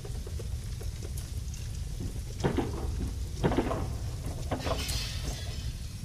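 Building fire burning: a steady low roar of flames with crackling, and several louder cracks and pops in the second half.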